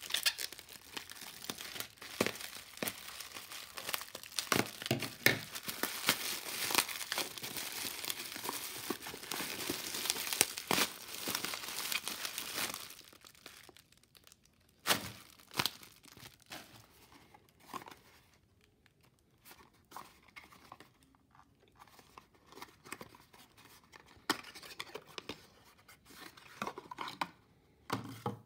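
Plastic bubble wrap crinkling and crackling as it is pulled off a small boxed candle, dense and continuous for roughly the first thirteen seconds. After that only sparse crinkles and a few sharp clicks as the wrap and the paperboard box are handled.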